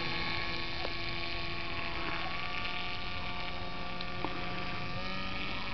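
Steady hum of a small homemade flying model's motor and propeller in flight, several held tones that drift slightly in pitch.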